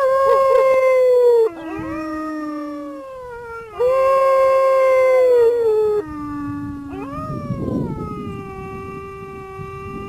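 Several wolves howling in chorus: long held calls at different pitches overlap, each rising quickly at the start and sliding down at the end. From about seven seconds a lower howl holds steady over a rougher low sound.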